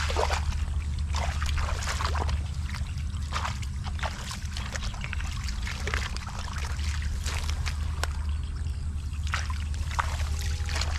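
Irregular splashing and sloshing of shallow water, many short splashes at uneven intervals, over a steady low hum.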